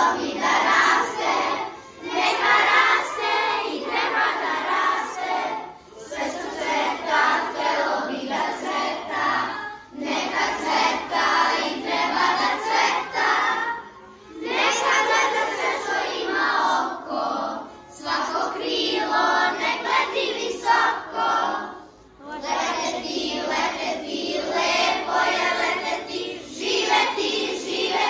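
A group of children singing a song together in chorus, in phrases of about four seconds with short breaks between them.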